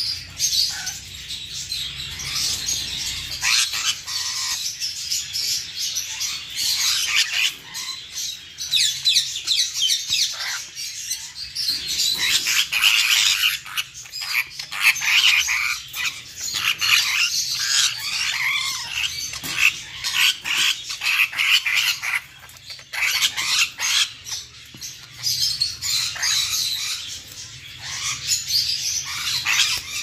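Many caged parrots chattering, chirping and squawking without a break, in quick overlapping high calls.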